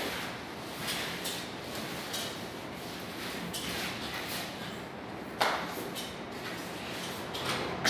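Rustling and handling noises as a sofa's fabric cover and padding are pulled and tucked over its frame, with a sharp knock about five and a half seconds in and a smaller one near the end.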